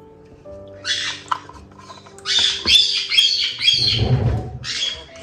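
White-bellied caiques squawking: one harsh call about a second in, then a rapid run of harsh squawks, about three a second, from about two seconds in. A brief low flutter of wingbeats comes about four seconds in as a bird flies.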